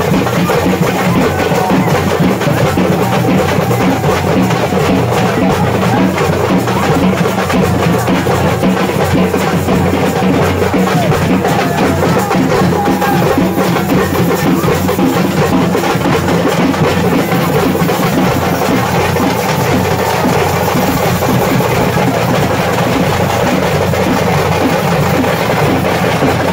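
Music dominated by loud, steady drumming that keeps up without a break.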